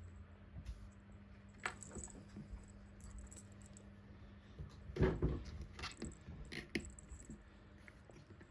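Soft scratches, rustles and small knocks of cats moving about and grooming, with a louder cluster about five seconds in, over a faint steady hum.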